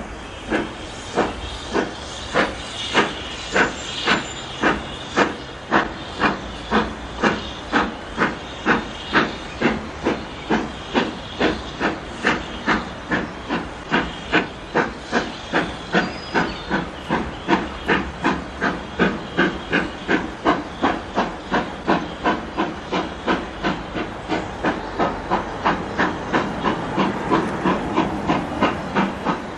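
Steam locomotive pulling away with a passenger train, its exhaust chuffing in a steady beat over a hiss of steam. The beat quickens from about two to nearly three chuffs a second as the train gathers speed.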